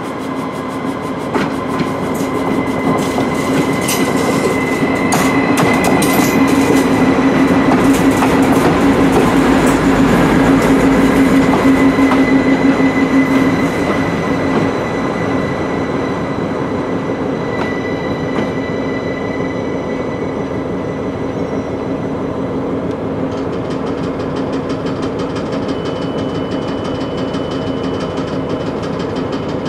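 A Stadler FLIRT diesel multiple unit approaching and running slowly past at close range: a steady engine hum with a thin high whine, and clicks of wheels over rail joints, loudest about a third of the way in. After the pass it settles into a quieter, even running sound.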